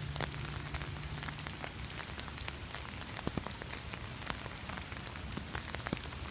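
Steady, calm rain falling, with irregular sharp ticks of drops striking the umbrella canopy overhead.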